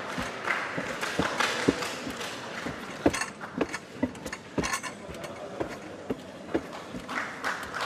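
A gymnast's hands slapping and thudding on the pommels and leather body of a pommel horse during a routine, irregular knocks about every half second, over the steady background noise of a crowded hall.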